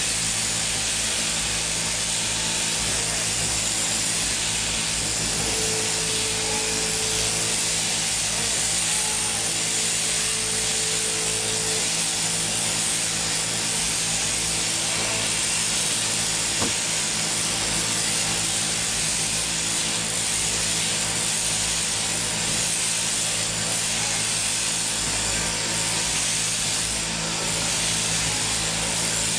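Mechanical sheep-shearing handpiece, driven by a jointed overhead drive shaft, running steadily as it cuts through a Merino ewe's fleece: a constant buzzing hiss over a low motor hum.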